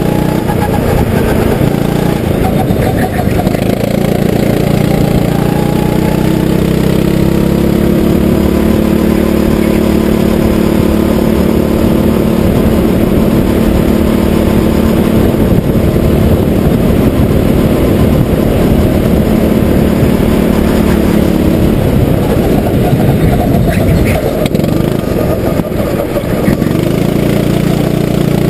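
Kart engine running hard under throttle, its pitch climbing slowly along a straight, then dropping off and breaking up about 22 seconds in as the kart slows for a bend, and picking up again near the end. A constant rough rushing noise runs underneath.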